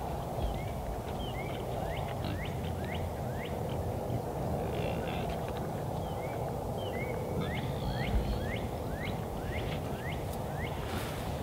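A songbird sings a run of short, slurred, rising whistled notes, two or three a second, over a steady low background noise. There is a brief rustle near the end.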